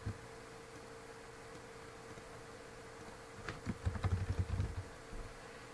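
Computer keyboard typing: a short run of quick keystrokes about three and a half seconds in, after a click or two at the start, over a steady faint hum.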